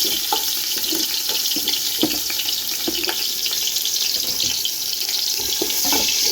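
Diced onions sizzling in hot sunflower oil in a pot: a steady frying hiss with a few knocks mixed in.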